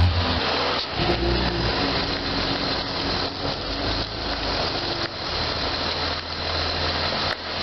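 BMW Z3 roadster's engine running steadily as the car pulls out and drives slowly across a paved lot.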